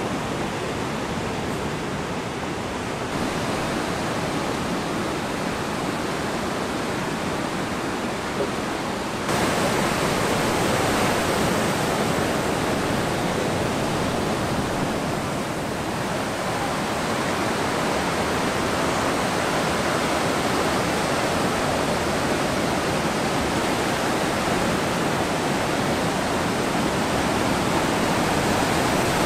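Steady roar of ocean surf breaking and washing ashore, with no distinct events. It jumps louder and brighter about three seconds in and again about nine seconds in.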